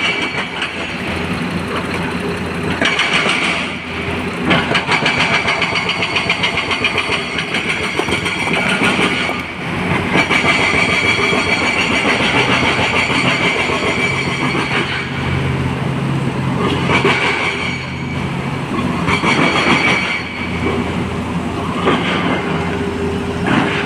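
Hydraulic excavator working under load: its diesel engine running with a steady high whine and a dense, rapid clatter. The sound dips briefly a few times.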